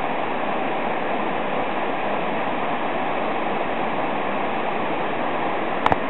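Rushing water of a mountain stream running high with rain, a steady even roar. Two sharp clicks come near the end.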